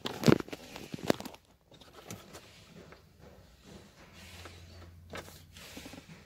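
Handling noise from cables and papers being moved about in a car glovebox: two sharp knocks within the first second or so, then light rustling and small clicks.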